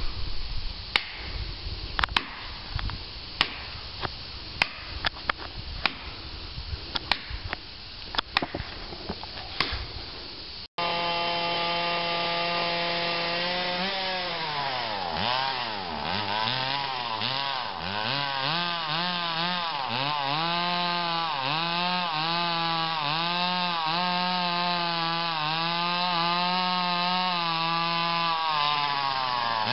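An axe chopping into an ash trunk, a dozen or so separate blows about a second apart. After a sudden cut about a third of the way in, a chainsaw runs loudly, steady at first, then its pitch repeatedly dips and recovers as it bogs and picks up in the cut.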